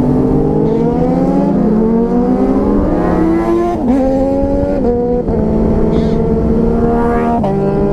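Motorcycle engine under acceleration: its note climbs steadily for about four seconds, drops suddenly at a gear change, then holds fairly steady before another drop near the end.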